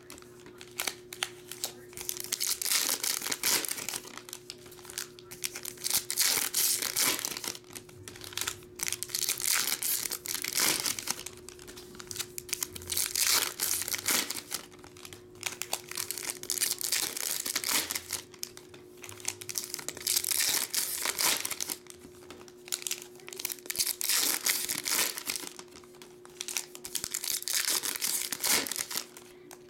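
Foil trading-card pack wrappers being torn open and crinkled by hand, in about ten bursts every two to three seconds, one pack after another.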